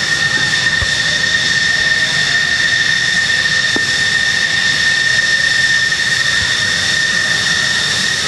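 F-14D Tomcat's General Electric F110-GE-400 jet engines running at idle on the ground: a loud, steady high whine over a low rumble.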